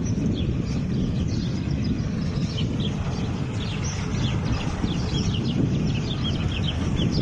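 Engine of a Nissan bus running as the bus drives slowly along the street, a steady low rumble. Small birds chirp repeatedly over it, many short falling chirps from a couple of seconds in.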